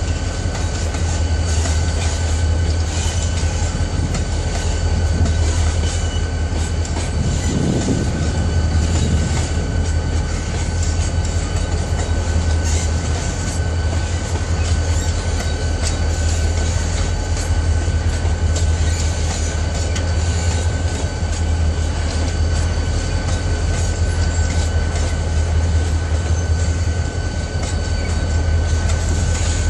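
Freight train boxcars rolling past at close range: a steady low rumble of steel wheels on rail with a clickety-clack over the rail joints, and a steady high-pitched wheel squeal running underneath.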